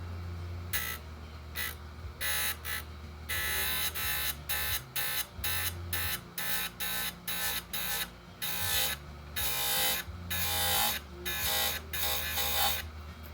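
Oregon 410-120 bench chain grinder running with a steady hum, its wheel biting the chainsaw chain's cutters in about twenty short grinding strokes, roughly two a second, each tooth sharpened in turn.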